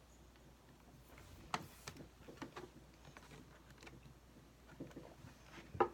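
Plastic LEGO bricks clicking faintly as pieces are handled and pressed into place: a handful of separate small clicks, the sharpest about a second and a half in and just before the end.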